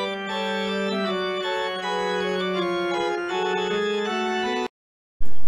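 Organ music: slow sustained chords over a held low note, the upper notes changing every second or so. It cuts off abruptly near the end, and after a brief silence a much louder sound starts just before the end.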